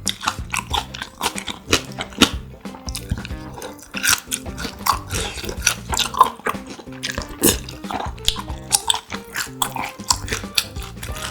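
Close-miked chewing of grilled pork intestine (makchang), with many quick, irregular clicks as it is bitten and chewed.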